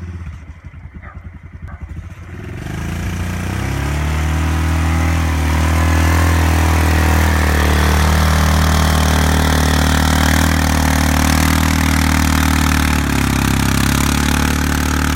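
ATV engine idling with an uneven chug, then revving up over a second or two and running steadily at higher speed, with a brief slight drop near the end.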